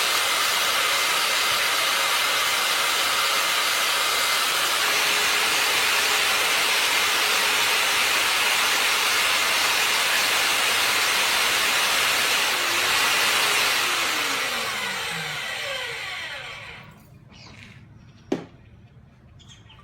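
Cayken SCY-38WSPM mini magnetic drill's motor running steadily, then switched off about two-thirds of the way through and spinning down with falling pitch. A single sharp click comes near the end.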